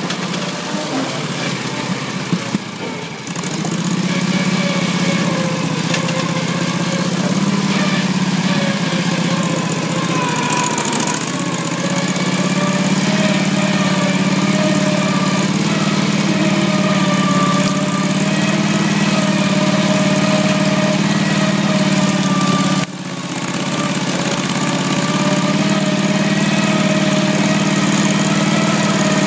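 Engine of a twin-tracked ATV running steadily at a fairly constant speed. It dips in level a couple of seconds in and drops sharply for a moment about three-quarters of the way through before carrying on.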